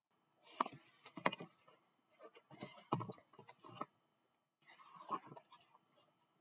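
Faint rustling and clicking of a hardcover picture book being handled and its pages turned, in several short bursts.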